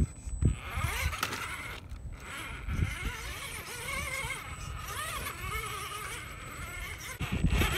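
Axial Wraith RC rock crawler's electric motor and geartrain whining, the pitch rising and falling with the throttle. Several knocks and scrapes come from its tyres and chassis on rock, heaviest near the end.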